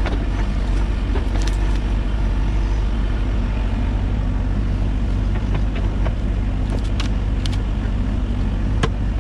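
A machine's engine running steadily, with a few sharp clicks or clanks in the second half.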